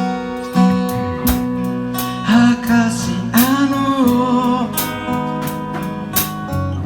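Acoustic guitar music: picked or strummed chords with a wavering, pitch-bending melody line over them, no lyrics sung.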